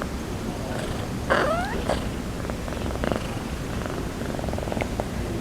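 A sleeping calico village cat snoring: a soft, steady, purr-like rattle with each breath. A brief chirping call with bending pitch cuts in about a second in.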